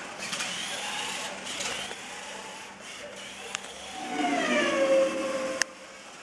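Electric motor and gears of a 1/24-scale Kyosho Mini-Z Buggy on foam tyres whining as it is driven, with a louder whine about two-thirds of the way in that slides down in pitch as the car slows, then a sharp click.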